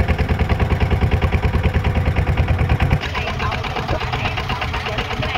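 Small river boat's engine running with a fast, even chugging. About three seconds in, it changes abruptly to a quieter, smoother run.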